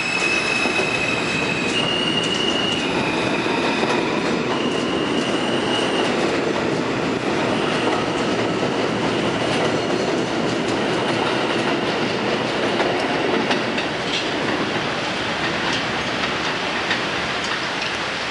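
R160A-1 subway train pulling out and picking up speed. Its traction motors whine in rising steps over the first few seconds, then give way to a steady rumble of wheels on rail, with clicking from the rail joints later on.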